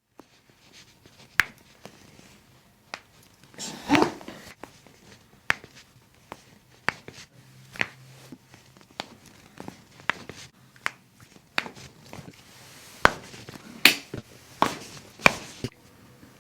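A string of sharp joint cracks and pops from chiropractic adjustments, about twenty of them at irregular spacing, with a longer crunch about four seconds in.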